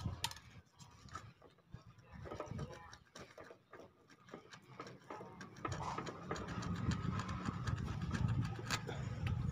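Hacksaw blade scraping an old gasket off the carburetor intake flange of a 70cc motorcycle engine: light scratches and clicks at first, becoming a denser, steadier scraping from a little past halfway.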